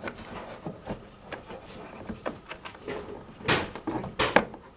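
Tumble dryer parts being handled and fitted back into place: a scatter of small clicks and knocks, with louder knocks about three and a half seconds in and again just after four seconds.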